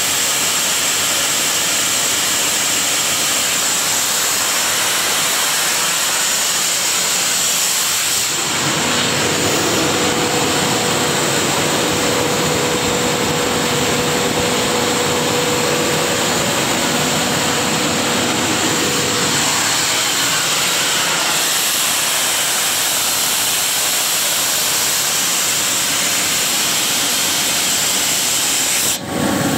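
Sullair portable air compressor driven by a Caterpillar 3306 six-cylinder diesel, running steadily with a strong hiss over the engine note. About eight seconds in the hiss eases and a steady hum from the engine comes forward for some ten seconds. There is a brief dropout near the end.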